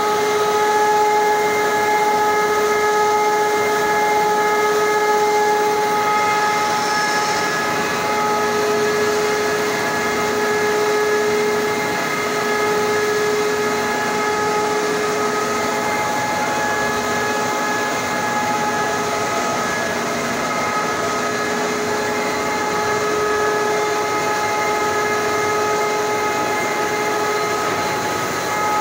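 Hunkeler paper-finishing line running at a slow 70 metres per minute while it processes a paper web into book blocks. The sound is a constant high whine over a steady hiss. The whine dips for a few seconds near the middle.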